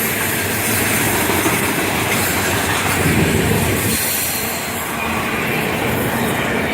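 Freight cars of a Florida East Coast Railway train rolling past, steel wheels running on the rails with a steady rumble that dips slightly about two thirds of the way through.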